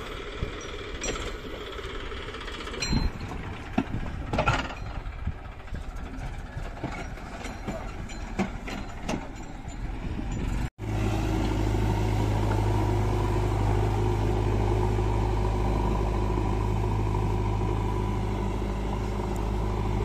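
Tractor diesel engine running while its hydraulic tipping trolley dumps a load of earth and stones, with sharp knocks of falling rocks about three to four and a half seconds in. After an abrupt cut near the middle, a louder, steady diesel engine drone takes over.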